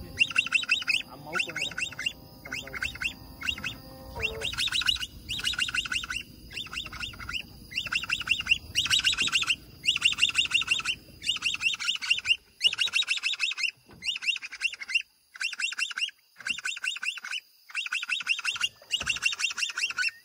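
Baby caiman giving repeated chirping distress calls, each a quick rattling chirp, about one a second: the juvenile's call that summons its mother.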